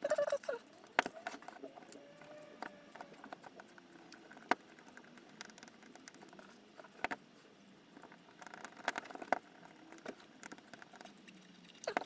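A screwdriver and a metal servo bracket clicking and tapping as small screws are driven into a robot arm's gripper servo mount by hand: scattered light clicks with quiet handling rustle between them.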